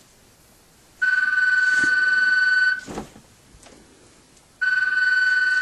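Telephone ringing for an incoming call: a steady electronic ring tone, one ring of nearly two seconds, then a second ring starting about two seconds later.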